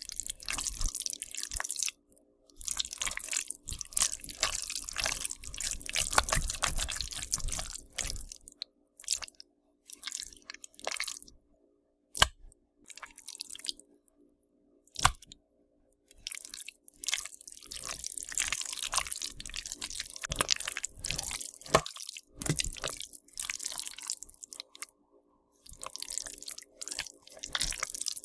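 Zombie-feeding sound effect: wet, squelching chewing, biting and crunching in irregular spells with short pauses. There is a sharp crack about twelve seconds in and another about fifteen seconds in.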